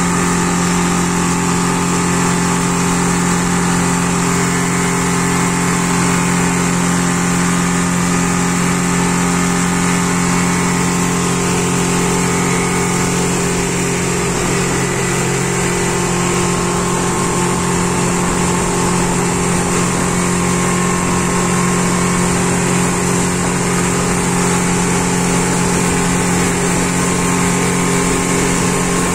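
Yamaha 150 outboard motor running steadily at speed, with the rush of water spray thrown off the wake.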